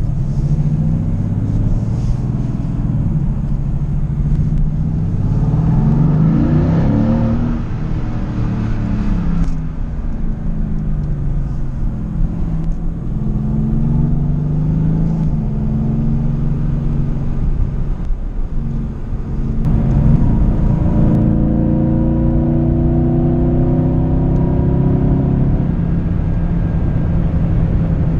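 Mercedes-AMG GT S's 4.0-litre twin-turbo V8 heard from inside the cabin, pulling hard in several surges, its pitch climbing and then dropping back at the gear changes, the longest climb near the end. A steady low road rumble runs underneath.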